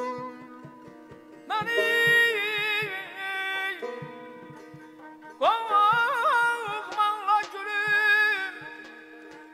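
Azerbaijani mugham played live: a tar plucked in a steady pattern over a held drone, with a balaban and a male singer's voice in two ornamented, quivering melodic phrases, one starting about a second and a half in and a longer one about halfway through.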